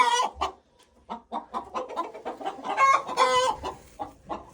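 Domestic hens clucking in the coop: a run of short clucks, with louder drawn-out calls at the start and again about three seconds in.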